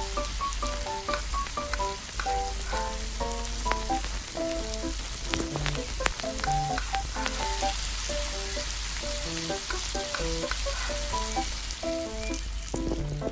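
Food sizzling in a tiny steel kadai, with a few sharp clinks of the spoon against the metal pan as the noodles are scooped out. Light background music of short notes plays throughout.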